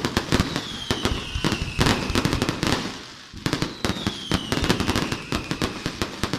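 Fireworks display: rapid volleys of sharp bangs and crackling from aerial shells, with falling whistles overhead. A short lull comes about three seconds in before the bangs resume.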